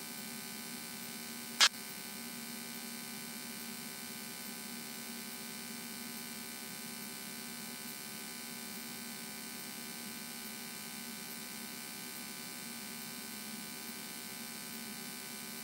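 Steady electrical hum and buzz on the aircraft's radio and intercom audio between transmissions, with one brief click about a second and a half in.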